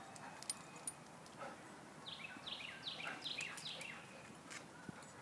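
A songbird singing a quick run of short notes, each sliding down in pitch, about two seconds in, over faint background noise.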